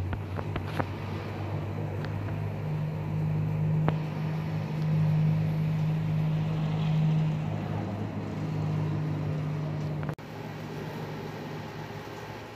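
Jet airliner passing high overhead: a steady low engine rumble that swells in the middle and breaks off about ten seconds in.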